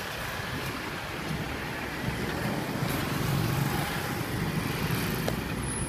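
Kubota M6040SU tractor's diesel engine running steadily under load while the tractor works a rear blade through loose soil. The engine gets a little louder about halfway through.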